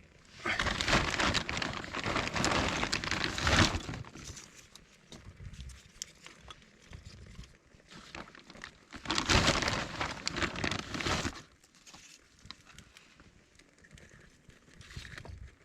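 Dry twigs and kindling being handled and broken up for a campfire: two bouts of rustling and crackling, each about three seconds long, the second about nine seconds in.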